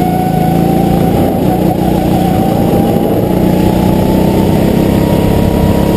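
Go-kart engine running hard, heard from on board the kart, its pitch rising slowly and steadily as the kart accelerates through a corner.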